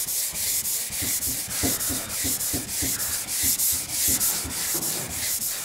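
Hand sanding block with 240-grit paper rubbing back and forth over dried primer on a car door panel, in quick regular strokes of about three a second. The primer is being sanded down to feather its edge smoothly into the bare metal.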